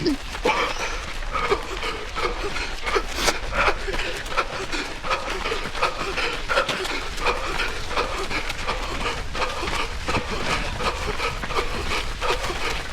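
A runner's heavy, rapid panting and wheezing breaths, going on without a break.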